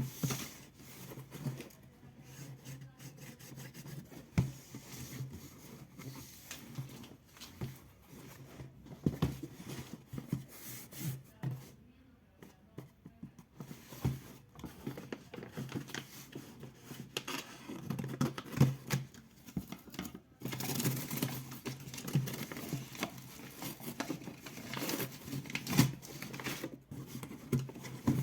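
A shipping package of comics being opened and handled by hand: tearing, crinkling of paper or plastic, and irregular knocks, over a steady low hum.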